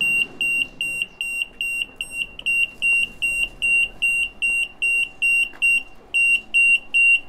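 Shop anti-theft security gate alarm beeping, about three short high beeps a second, with a brief break about six seconds in: the signal that an item with an active security tag is passing through the gate.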